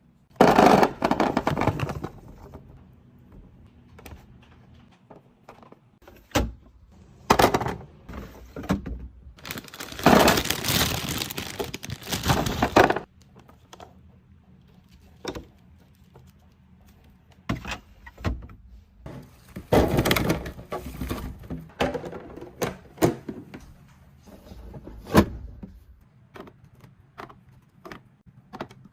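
Handling sounds of restocking: a series of knocks, clicks and thunks of containers and items being set down and opened, with three longer noisy stretches of rustling or clatter.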